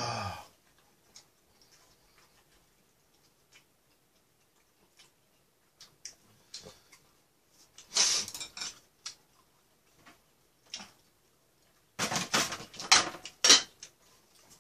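Eating sounds close to the microphone: scattered light clicks of chopsticks against the pan and bowl. There are two louder clusters of mouth noise from eating, about eight seconds in and again from about twelve to fourteen seconds in.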